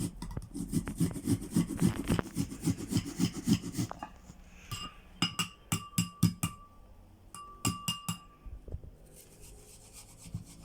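A small onion being grated on a fine hand grater: quick rasping strokes, about four or five a second, for the first four seconds. Then a series of short, ringing clinks.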